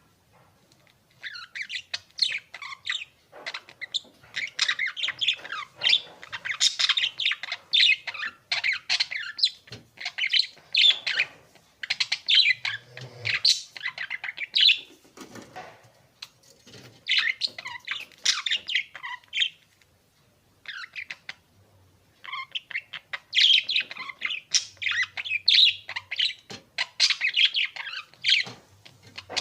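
Birds tweeting: many quick, high chirps overlapping in busy bursts, with a brief lull about halfway through and a longer one around two-thirds of the way.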